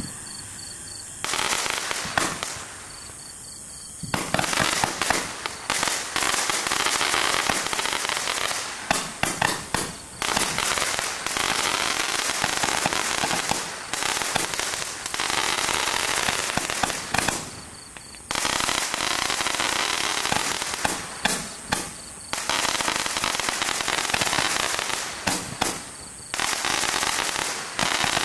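MC721 Bazooka Roman candle firing repeatedly: sharp pops as shots launch on gold glittering tails and burst into chrysanthemums, over dense, steady crackling. There are brief lulls about ten and eighteen seconds in.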